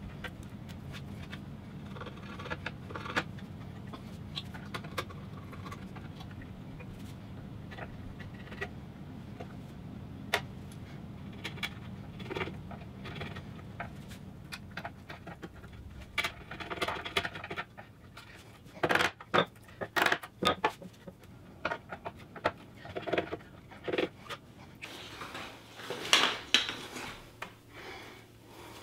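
Chisel scraping and picking old glue and debris out of the broken joints of a wooden cabinet door, in short scratchy strokes and light taps. The strokes grow louder and more frequent after about sixteen seconds.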